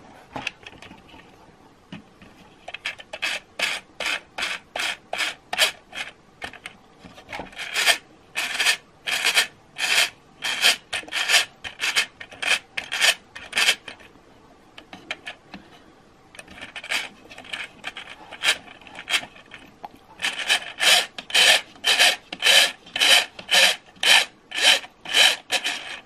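The plastic gears and 3D-printed ABS lever of a Tyco US 1 log-loading bulldozer's reversing mechanism being worked round by hand, scraping in quick repeated strokes, about two a second. The strokes come in several runs with short pauses between them.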